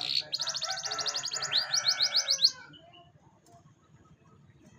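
Domestic canary singing: a fast rolling trill, then a run of quick rising sweeping notes, stopping suddenly about two and a half seconds in.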